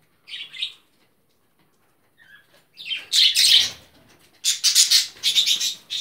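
A budgerigar gives a short chirp about half a second in, then two longer, harsh squawking bursts in the second half.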